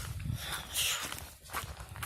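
A hiker's footsteps on a mountain trail, irregular steps, with a louder brief scraping hiss a little under a second in.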